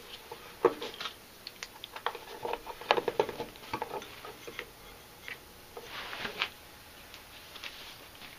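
Light clicks and knocks of a PVC pipe water bar being handled and turned in its wooden trough, most of them in the first half, followed by a brief rustle about six seconds in.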